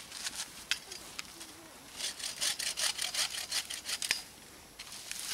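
Hand saw cutting through a branch of a freshly felled Christmas tree: a few scattered clicks, then about two seconds in a run of quick back-and-forth strokes, several a second, that stops after about two seconds.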